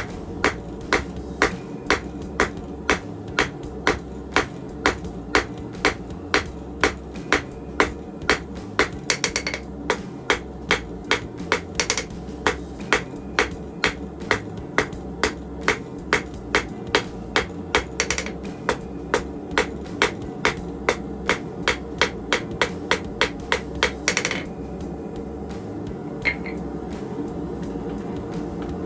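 Hand hammer striking hot steel bar stock on an anvil, about two even blows a second, drawing out a taper on the bar. The hammering stops about four seconds before the end.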